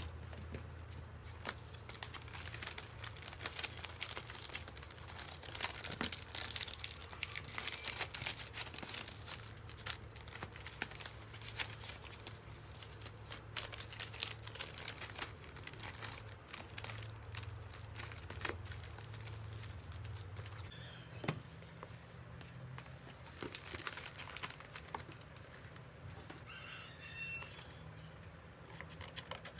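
Plastic bubble mailers crinkling and rustling as they are handled and stacked, with many small irregular crackles and taps, over a steady low hum.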